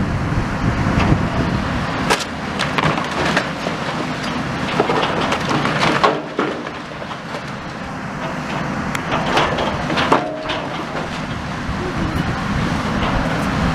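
High-reach demolition excavator at work: its diesel engine running under repeated knocks and clattering as the grab pulls at burnt roof timbers and brickwork.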